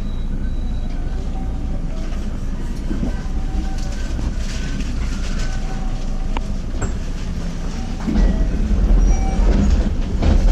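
JR Tokaido Line Special Rapid electric train running at speed, heard from inside a passenger car: a steady rumble of wheels on rail, which grows louder and deeper about eight seconds in.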